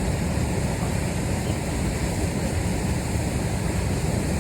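Steady rush of high water pouring over a dam.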